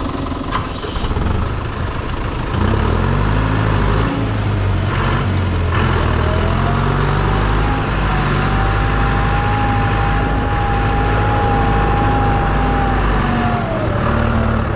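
Tractor diesel engine revving up about two and a half seconds in and then held at high, steady revs. A high whine rises alongside it, holds steady, and falls away near the end.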